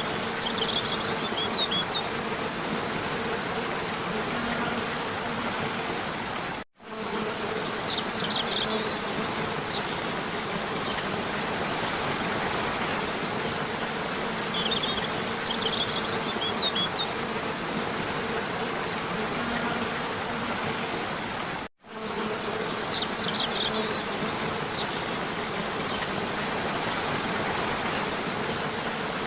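Steady outdoor ambience: a continuous buzzing hiss with short high chirps that recur in the same pattern, as in a looped track. The sound cuts out completely for a moment twice.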